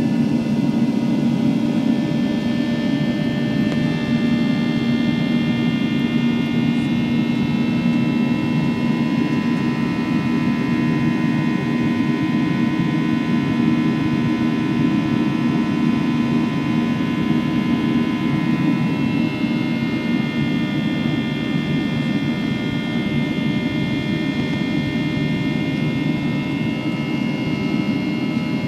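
Steady jet cabin noise of a Boeing 737-700's CFM56-7B engines during the climb after takeoff, a low roar with high fan whine on top. The whining tones fade in the middle and come back, slightly shifted in pitch, about two-thirds of the way through.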